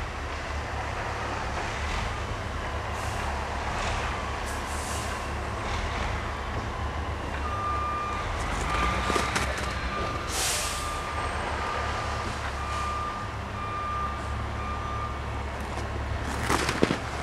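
Heavy land-clearing machinery working, a steady low engine rumble, with a reversing alarm beeping repeatedly for several seconds in the middle. A few short hissing bursts, and a sharp clatter near the end that is the loudest sound.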